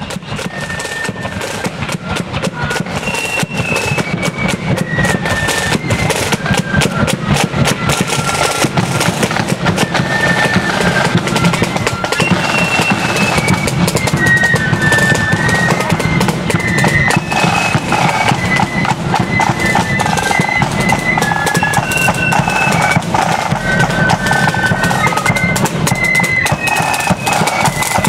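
Marching flute band playing a tune: a high flute melody over snare and bass drums, growing louder over the first few seconds as the band approaches.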